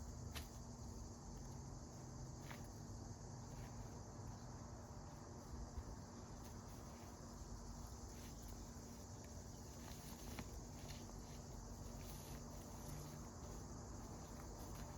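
Faint outdoor ambience: insects chirring steadily and high-pitched, over a low steady hum, with a few scattered small clicks and taps.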